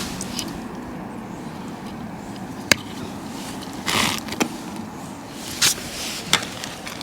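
Scattered clicks and short rustles of hands handling electrical cable and a plastic junction box, over a steady low background noise. A sharp click comes about a third of the way in, a brief rustle just past halfway, and a few lighter knocks near the end.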